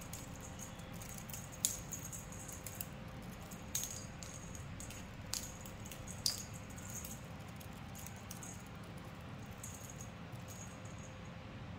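A small bell jingling in several short shakes, louder in the first half and fainter later, as a cat plays with a wand toy; a faint steady hum runs underneath.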